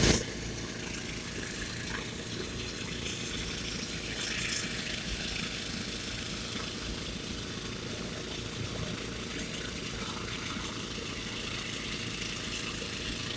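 Heavy diesel machinery engine running steadily with a low, pulsing rumble.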